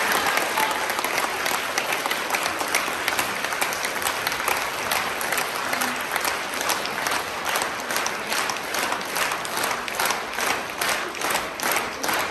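Audience applauding after a chamber string performance; about halfway through, the clapping falls into a steady rhythm, the whole hall clapping in unison.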